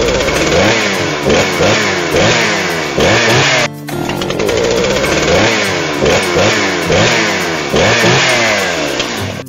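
Dirt bike engine revving up and down over and over as it rides, with a short break about three and a half seconds in where the same stretch of engine sound starts again.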